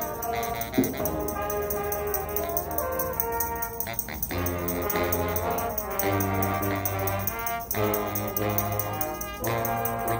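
Marching band playing: sustained brass chords with front-ensemble percussion, one loud percussion hit about a second in, and low brass notes entering about four seconds in.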